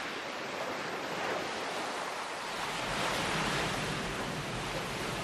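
Ocean surf washing onto a beach: a steady rush of breaking waves that swells and eases.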